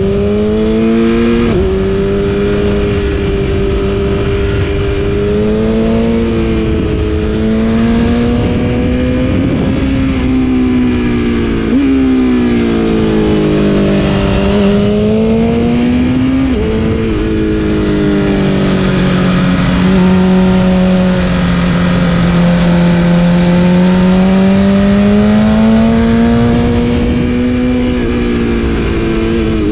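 2020 BMW S1000RR's inline-four engine through an Akrapovic exhaust, ridden hard: the engine note rises and falls with the throttle, and the pitch jumps sharply at several gear changes.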